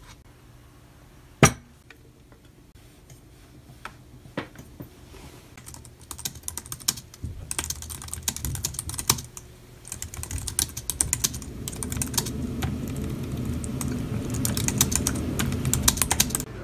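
Fast typing on a tablet's thin folio keyboard cover: scattered key clicks at first, then a quick, steady run of keystrokes from about six seconds in. A single sharp knock about a second and a half in.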